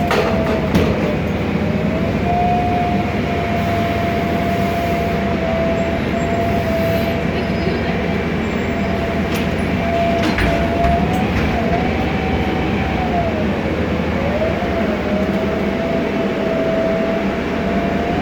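Interior running noise of a 2007 MAN Lion's Classic CNG city bus under way: a steady whine from its Voith DIWA 864.3 automatic gearbox that wavers slightly in pitch, over engine rumble and the rush of air through open ventilation. A few short rattling clicks come through.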